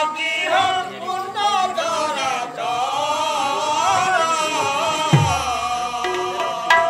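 Men's voices singing a Sambalpuri folk song together in a high, loud style, with a few dhol drum strokes near the end.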